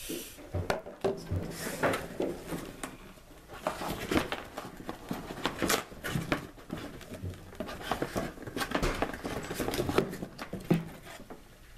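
Cardboard packaging and metal detector parts being handled: irregular clicks, taps and rustles as pieces are lifted out of the box's cardboard inserts.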